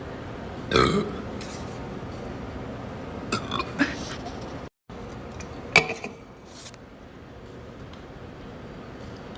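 A person belching: one loud burp about a second in, then a few shorter, quieter sounds. The sound cuts out briefly near the middle.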